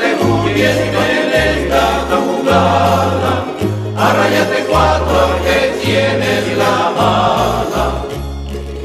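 Background music: a song passage with layered instruments or voices over a bass line that steps between held notes about once a second.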